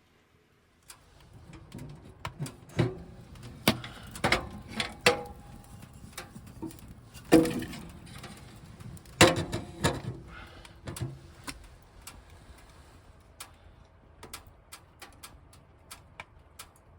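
Irregular knocks and clicks over a steady low hiss, starting about a second in; the two loudest knocks come about halfway through, a couple of seconds apart.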